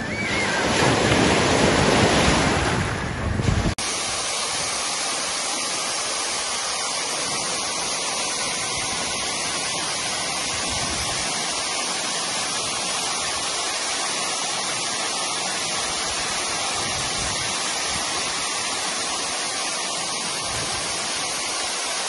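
A sea wave breaking and surging, swelling loud for a few seconds, then cut off abruptly. After the cut, the steady, even rush of a waterfall spilling over rock into a pool.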